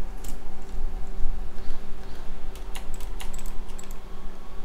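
Irregular clicks of a computer keyboard and mouse being worked, over a steady low electrical hum that goes with a microphone not plugged in properly.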